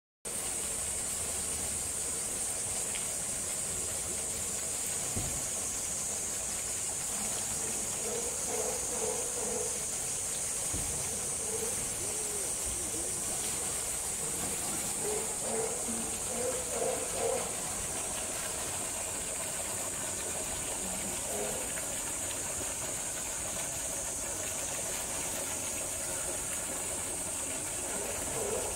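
Steady outdoor ambience at a polar bear pool: a constant high hiss with a low noise of water beneath it. Faint distant voices rise now and then.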